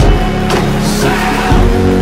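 Loud music with a steady beat, filling the hall.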